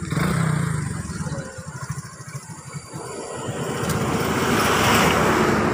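A motor vehicle approaching and passing close by on the road, its engine and tyre noise swelling to a peak about five seconds in.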